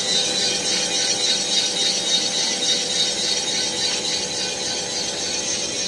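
Cylinder boring machine running steadily, its boring bar spinning and cutting inside an engine block's cylinder bore. The sound is continuous and even, with a high-pitched edge over a few steady tones.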